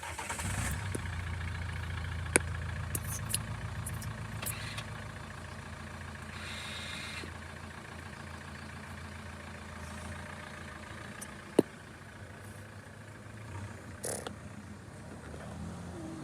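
A steady low engine hum with a few sharp clicks over it.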